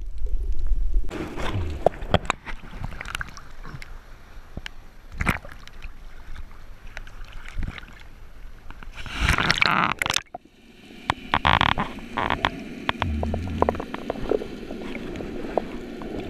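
Underwater sound through a dive camera: scattered clicks and knocks throughout, a short rush of bubbles about nine seconds in, and a low hum near the end.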